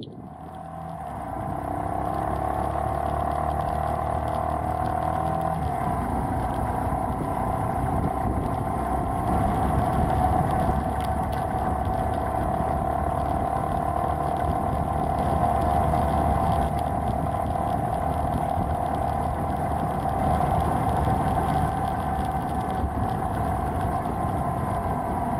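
Beta Alp trail motorcycle's single-cylinder four-stroke engine pulling away, rising in pitch and loudness over the first two seconds, then running steadily at road speed.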